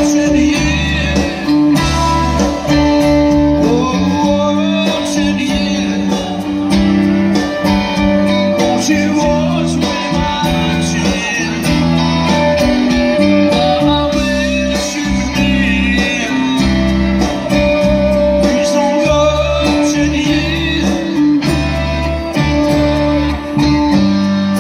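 Live rock band playing loudly, with electric guitars, bass and drums, and a singer.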